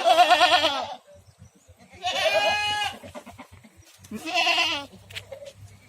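Goats bleating: three wavering bleats about two seconds apart, each lasting under a second.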